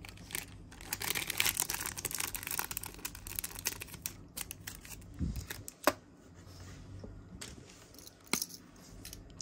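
Crinkling and rustling of plastic packaging being handled, dense for about four seconds, then quieter, with a couple of sharp clicks later on.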